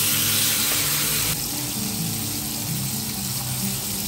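Steak sizzling in a cast-iron grill pan: a steady frying hiss that eases a little about a second in, under background music.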